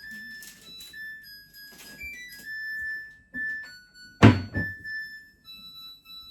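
Background piano music, with a loud thump about four seconds in followed by a smaller knock.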